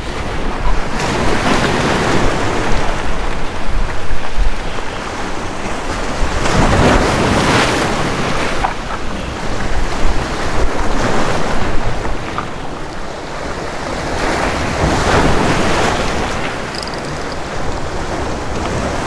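Sea surf breaking and washing against the boulders of a rock jetty, swelling and easing in repeated surges every few seconds, with wind buffeting the microphone.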